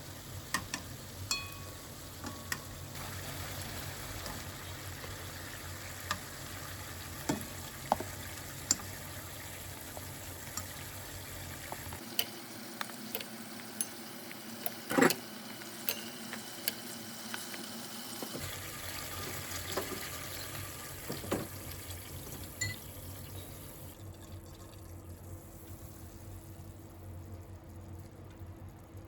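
Cooking sounds: a steady sizzling hiss of food frying, with scattered clicks and taps of utensils against cookware and one sharper knock about halfway through.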